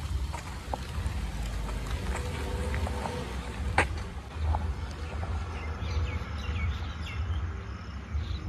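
Birds chirping now and then over a low, steady street rumble, with a cluster of quick chirps near the end.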